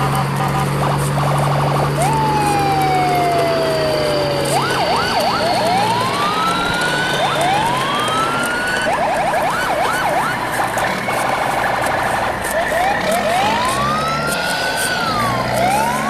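Siren wails overlapping one another: long rising and falling sweeps, with bursts of quick repeated yelping sweeps about five and nine seconds in and again near the end. Under them runs a low steady engine hum that weakens about four seconds in.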